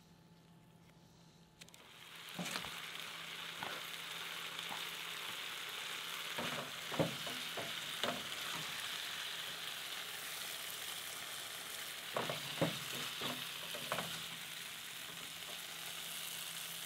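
Ground beef with diced onions sizzling in a skillet on a portable camp stove, with a wooden spatula scraping and knocking against the pan now and then. The sizzling comes in about two seconds in and stops abruptly near the end.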